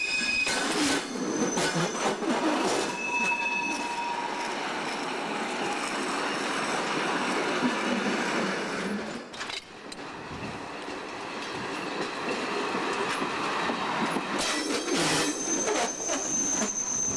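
Freight wagons rolling down a shunting hump: steel wheels clattering over rail joints and points, with high-pitched wheel squeal that comes and goes, strongest near the start and again near the end. The noise drops briefly about halfway.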